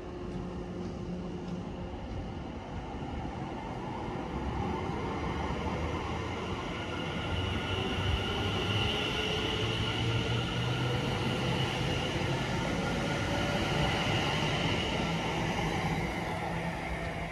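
A train running through the station, its rumble building to a peak about halfway through and then easing off, with a hum and a faint tone that slowly rises in pitch.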